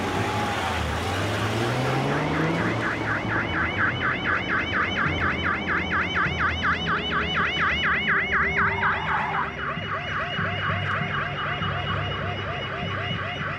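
Police car siren sounding a fast, rapidly repeating warble. It starts about two seconds in, over a car engine revving up as the car pulls away, and cuts off suddenly at the very end.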